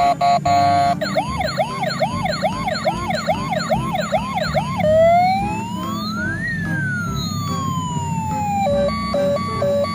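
Battery-powered toy police excavator sounding its electronic siren effects through a small speaker: a few short beeps, then a fast up-and-down yelp repeating about twice a second, one slow wail that rises and falls, and quick two-tone beeping near the end, over a steady low hum.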